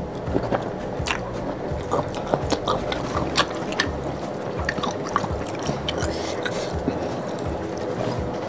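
A person slurping and chewing rice noodles in soup close to the microphone, with many small wet mouth clicks and smacks.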